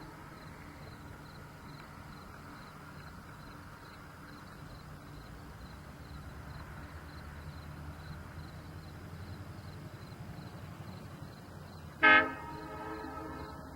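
A low, steady engine rumble that swells a little mid-way, then near the end one short blast of a multi-chime air horn, the loudest sound.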